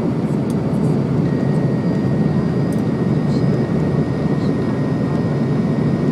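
Airliner landing: a steady, dense rumble of jet engines and airflow, with a faint high steady whine coming in about a second in.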